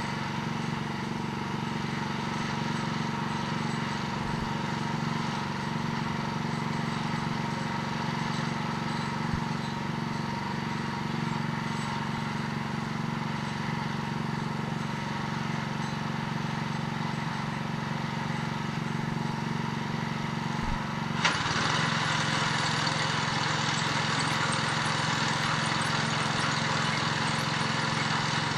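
An engine running steadily. About 21 seconds in, a knock, then the sound becomes louder and noisier.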